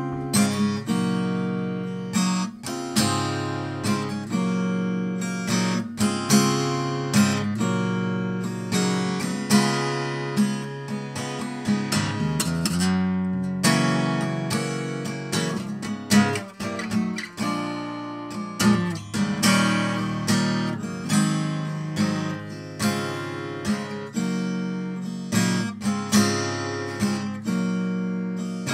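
Solo acoustic guitar playing an instrumental introduction: chords plucked and strummed about twice a second, each ringing on and fading before the next.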